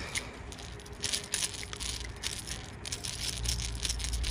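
Crankbait and its treble hooks rattling and clicking irregularly as a small hooked bass is held and wriggles in hand.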